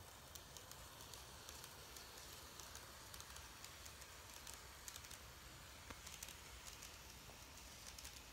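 N-gauge model train (C11 steam locomotive with 24-series sleeper coaches) running along the track: faint, irregular clicking of the small wheels on the rails over a low steady hum.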